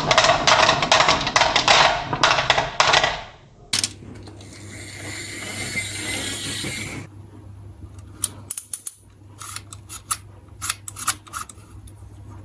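Marbles clattering and rolling along a plastic marble run: a dense rush of clicks first, then a few seconds of steady rolling hiss, then scattered single clicks of marbles striking the track. A low steady hum runs under the second half.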